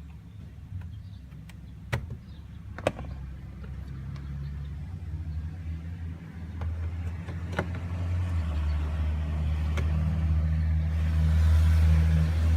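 Low, steady vehicle rumble that grows louder over the second half, with a few sharp single clicks in the first part.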